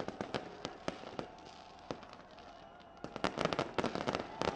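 Aerial fireworks bursting overhead: scattered sharp cracks, then a dense run of rapid crackling bangs starting about three seconds in.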